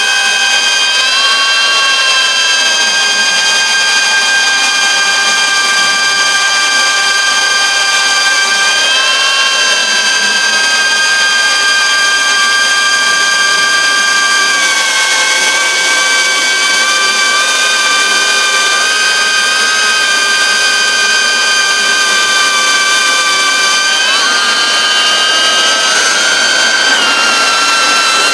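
FPV whoop drone's electric motors and propellers whining steadily in flight, the pitch shifting up and down together as the throttle changes.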